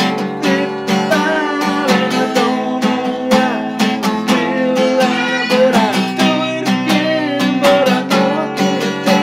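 Acoustic guitar strummed in a steady rhythm, chords with a moving melody line running over them.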